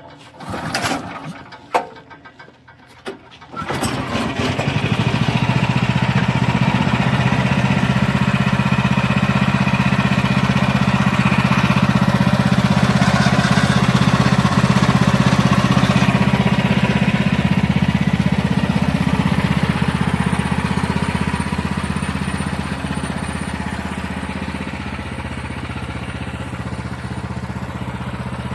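A few knocks, then the Wood-Mizer LX50 Super sawmill's gasoline engine starts about three and a half seconds in and runs steadily. It drops slightly in level near the end.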